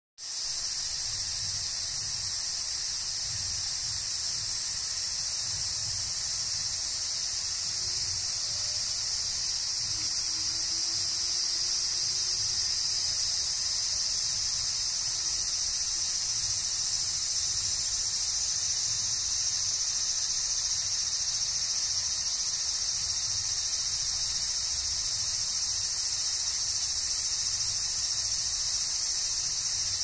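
A dense chorus of insects: a continuous high-pitched shrill that holds steady without breaks.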